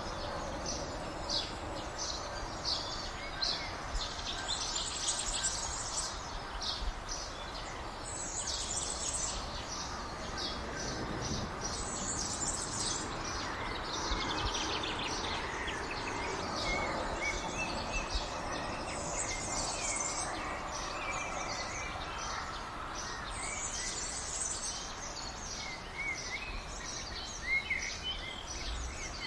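Outdoor ambience of songbirds singing and chirping, with a phrase of song every few seconds and scattered short chirps over a steady background hiss.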